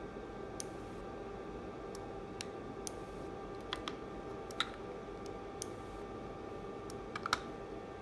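Irregular sharp plastic clicks, about a dozen, as the buttons on handheld remote controls are pressed, with a quick cluster near the end, over a steady faint electrical hum.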